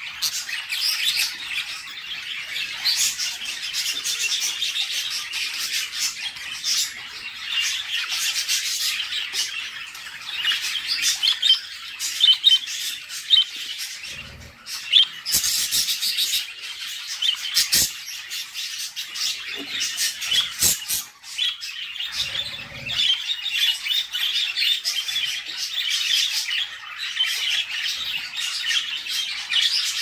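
Budgerigar chicks begging as the hen feeds them: a continuous high, rasping chatter of quick cheeps. A few dull knocks come around the middle.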